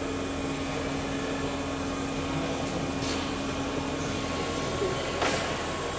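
Steady mechanical hum of workshop machinery or ventilation, with a couple of brief knocks about halfway through and near the end.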